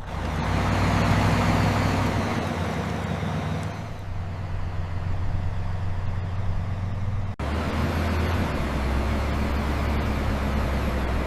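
Heavy diesel vehicle engines running steadily, a low drone with rumble and rattle above it. The sound cuts abruptly a little past halfway to another similar engine drone.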